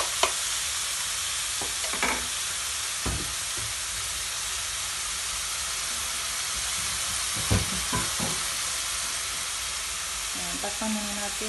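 Chicken pieces sizzling as they brown in a hot frying pan, with a spatula knocking against the pan a few times as the meat is stirred.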